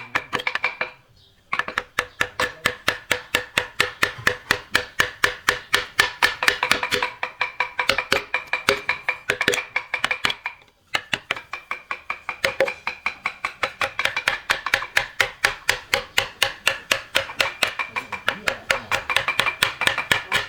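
Fast, even hammer blows on a ringing metal tool, about five or six a second, each strike leaving the same metallic ring. The hammering stops twice briefly, about a second in and about halfway through.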